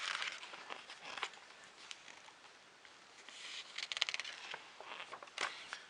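Paper magazine pages being handled and turned: soft rustles, with a flurry of quick crackles about three and a half seconds in and a single sharp rustle near the end.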